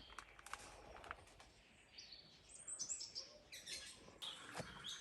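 Birds chirping faintly, with a run of short high chirps a little past halfway.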